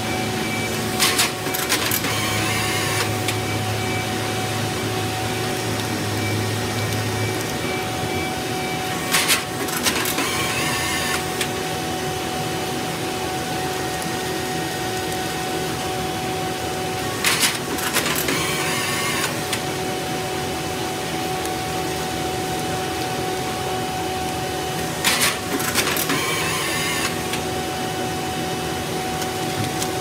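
Twin ram baler with a 22 kW drive running steadily with a machine hum while baling reject plastic. Four times, about eight seconds apart, a pair of sharp clacks is followed by a second or two of rushing noise.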